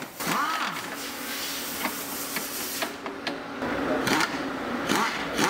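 A small power tool whirring steadily for a few seconds at one pitch, with a few clicks and knocks, as the fasteners of a car's lower engine splash guard are undone.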